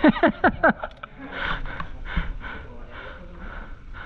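A person breathing hard, with a quick run of short falling-pitch vocal sounds in the first second followed by steady puffs of breath about three times a second.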